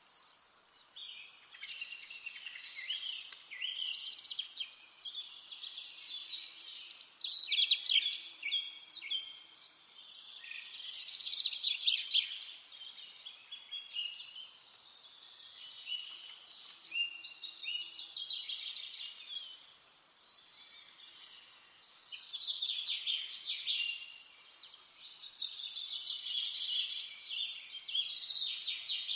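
Songbirds singing: fast, high twittering phrases a few seconds long, one after another with short pauses, over a faint outdoor background hiss.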